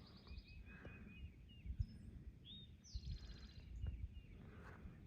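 Songbirds singing: a run of short repeated chirps, then a fast high trill about three seconds in. Wind buffets the microphone underneath.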